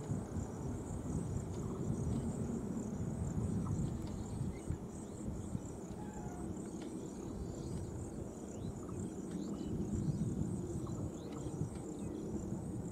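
Low rumble of a departing train receding into the distance, easing slightly. Over it, insects buzz steadily in a high, pulsing drone, with a few short bird chirps.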